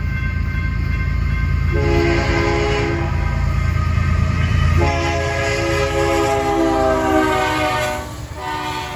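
BNSF freight locomotive sounding its horn for the crossing as it approaches at speed, over the heavy rumble of the train. There is a short blast about two seconds in and a long blast from about five seconds that falls in pitch as the locomotive passes, then a brief final blast.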